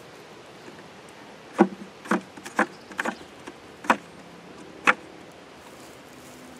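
Wooden beehive frames knocking and clacking against each other and the hive box as they are shifted by hand: about six sharp knocks over the middle few seconds.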